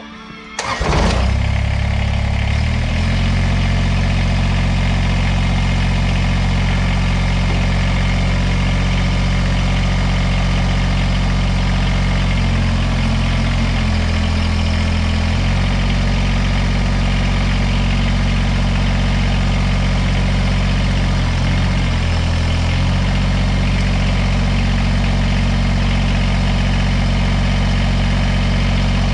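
Kubota BX compact tractor's diesel engine starting about a second in, then idling steadily. Its note shifts briefly twice, once around the middle and again later.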